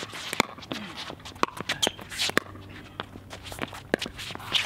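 Pickleball rally: paddles popping the plastic ball back and forth in a quick exchange at the net, a sharp click every half second to a second. Sneakers scuff and squeak on the hard court between shots.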